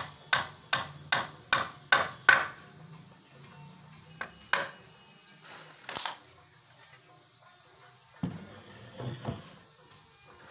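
Hammer driving a nail into a wooden plank of a plywood sofa frame: a quick, even run of about seven ringing blows, then two more single blows a few seconds later.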